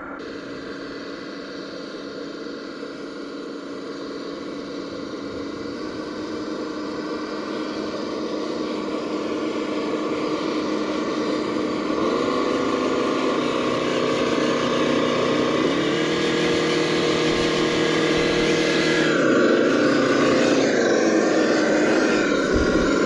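Simulated engine sound played through the Sense Innovations ESS Dual Plus sound module's speakers on a Traxxas TRX4 RC crawler, growing steadily louder as the truck climbs toward the microphone. In the second half the engine note steps up in pitch several times, like revving.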